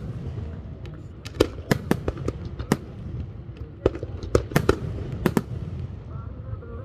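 Aerial fireworks shells bursting overhead: about a dozen sharp bangs at irregular intervals, over a steady low rumble.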